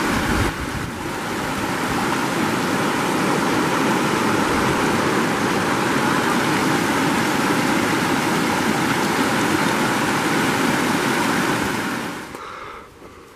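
A steady, even rushing hiss that dies away about twelve seconds in.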